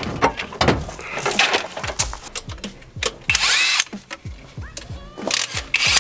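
Cordless drill spinning a long cut-down Allen key bit on the upper intake manifold bolts of a six-cylinder engine, in two short bursts in the second half, its whine rising in pitch as it spins up each time. Before that, clicks and rubbing as hands work at engine-bay hoses.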